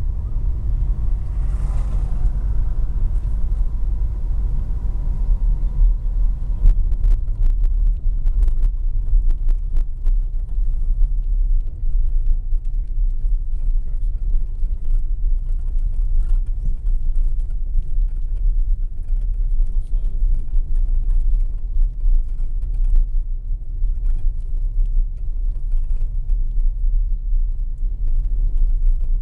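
Steady low rumble of a car driving along a street, heard from inside the car: engine and road noise.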